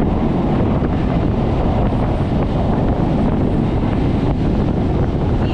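Steady wind buffeting the microphone over the running rumble of a Medha-rake EMU local train in motion.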